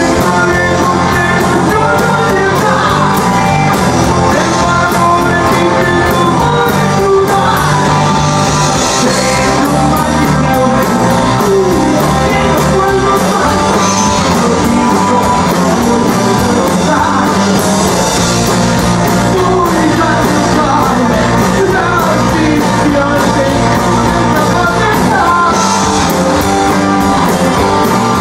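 Rock band playing live: electric guitars and drums at a steady loud level, with a singer shouting the vocals over them.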